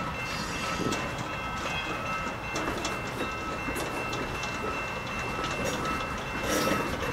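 Gondola cars loaded with railway ties rolling past in reverse: a steady rumble of steel wheels on rail with scattered clicks and clanks.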